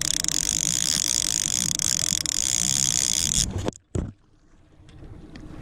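Fishing reel being wound in, a steady run of fine mechanical clicking over the drone of a boat, cutting off abruptly about three and a half seconds in.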